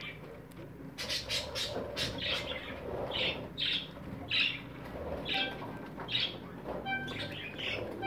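Budgerigars in a nest box: short, raspy chirps repeating about twice a second, starting about a second in.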